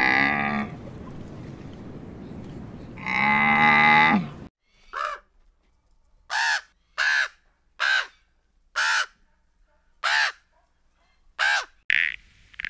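A camel groaning in two long, drawn-out calls, then a crow cawing seven times in short, separate caws spread over about seven seconds, and near the end a toad starting to croak.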